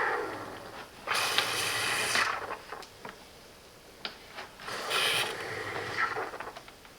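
Espresso machine steam wand hissing in two short blasts, one about a second in and a shorter one near five seconds, with a few small clicks and knocks between.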